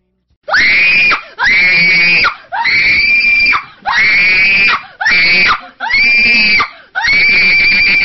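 Seven loud, high-pitched screams in quick succession, about one a second. Each rises in pitch and is then held, and the last one is the longest.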